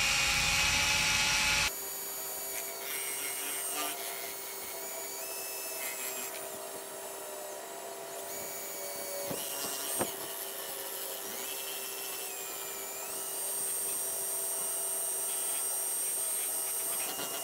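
Drill spinning a mixing paddle through thick, settled paint. Its motor whine steps up and down in pitch as the speed changes, louder at first and then dropping suddenly, with one sharp tap about ten seconds in.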